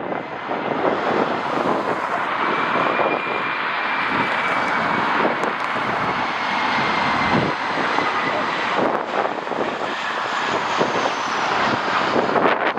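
Jet airliner's engines passing, a steady rushing noise with a faint high whine that slowly drops in pitch. Gusts of wind buffet the microphone.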